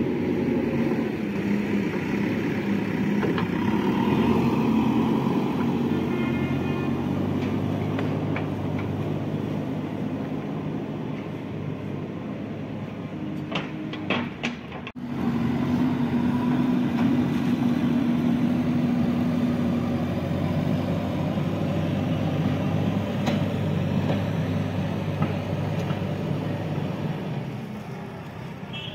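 JCB 3DX backhoe loader's diesel engine running at work, its note shifting a little as it is loaded. A short dip with a few clicks comes about halfway through, then it runs on steadily.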